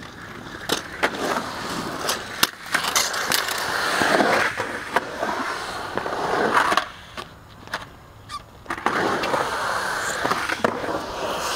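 Skateboard wheels rolling hard on concrete park surfaces, with repeated sharp clacks of the board and trucks hitting the concrete. It dies down for a couple of seconds past the middle, then rolls on again.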